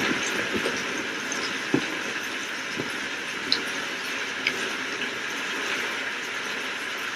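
Steady hiss of falling rain, with a few sharper taps of heavier drops.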